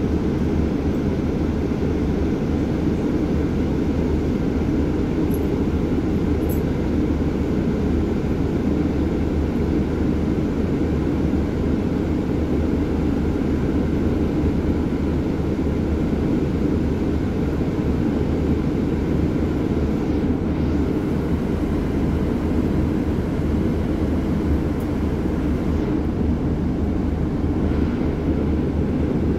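Steady low rumble of a double-decker bus's engine and road noise, heard from inside the upper deck.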